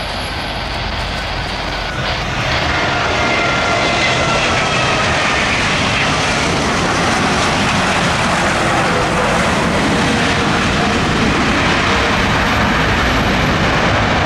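Jet engines of a Lion Air twin-engine widebody airliner running loud as it speeds along the runway. The noise grows about two seconds in, with a whine that falls in pitch over the next few seconds.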